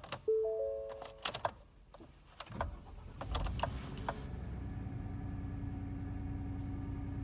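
Ford F-150 pickup being started in the cold: a few clicks and a short dashboard chime, then the engine cranks and catches about three seconds in and keeps running steadily at idle.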